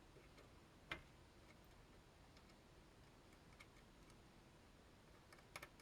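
Near silence, broken by a few faint clicks of small tools and parts being handled while flux is applied to a circuit board. The sharpest click comes about a second in, and a quick pair near the end.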